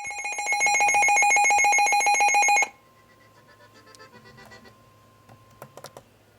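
A loud, fast-pulsing electronic alert tone, ringing like a telephone, lasting about two and a half seconds and then cutting off. After it there is only a faint steady tone and a few faint clicks.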